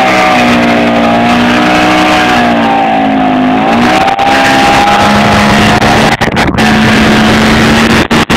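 Raptor Spyder 300 motorcycle engine held at high revs during a burnout, its rear tyre spinning on the road. The revs waver up and down for the first few seconds, then hold steady.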